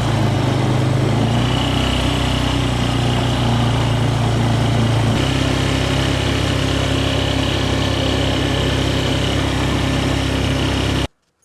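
A small engine running steadily, its note shifting slightly about five seconds in, then cutting off suddenly near the end.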